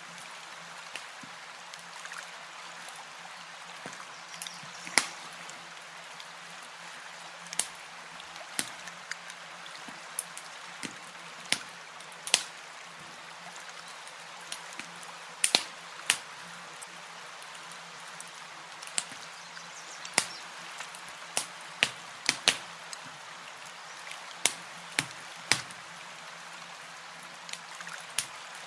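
Campfire crackling, with sharp pops at irregular intervals over a steady hiss.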